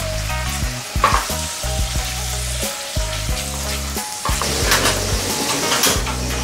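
Minced beef and onions sizzling in a hot pan while a silicone spatula stirs and scrapes through them in a few short strokes, with background music underneath.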